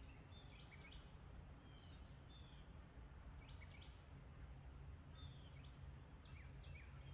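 Near silence outdoors: scattered faint bird chirps, short and high, over a low steady background hum.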